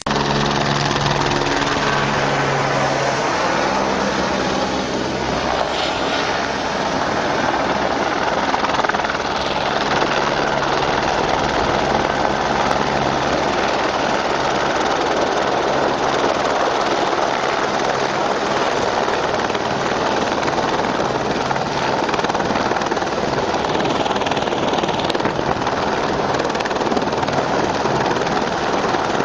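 Helicopter's rotor and engine running loudly and steadily, a continuous rushing noise with a low droning pitch that is strongest in the first few seconds.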